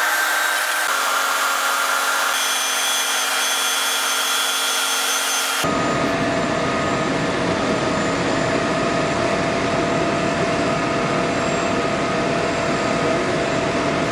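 Heavy rescue machinery running steadily while the wrecked car hangs from the chains: a loud, even drone with a few faint steady tones. A little under six seconds in it turns abruptly fuller and deeper.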